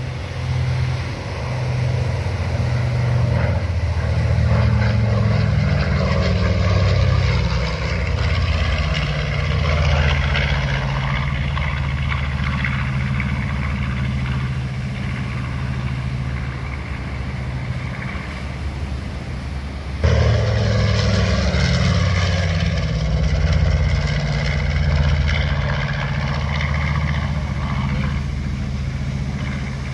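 Twin-engine piston propeller plane flying low past, a steady drone from its engines and propellers that shifts in pitch, over wind and surf noise. The sound jumps abruptly louder about twenty seconds in.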